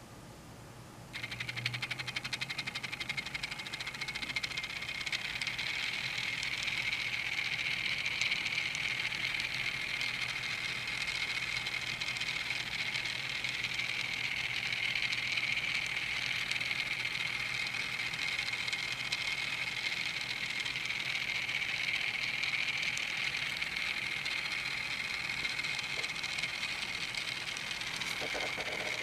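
A tiny battery-powered electric train set (IDL Teeny Trains, about 1/1000 scale) switches on about a second in and runs steadily. It makes a high-pitched motor whir with a fine, rapid rattle as the train circles its loop.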